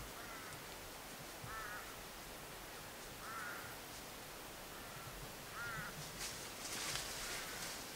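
A bird calling over and over, short calls coming every second or two. About six seconds in there is a brief rustle, such as leaves or brush being disturbed.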